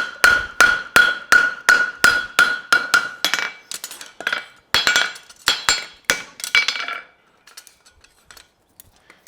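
Farrier's hammer striking a steel horseshoe on the anvil to level the toe: a steady run of about three blows a second, each with a ringing note. The blows grow uneven after about three seconds and stop about seven seconds in.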